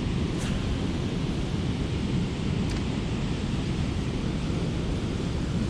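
Steady low rumble of wind buffeting the microphone outdoors, with no distinct event in it.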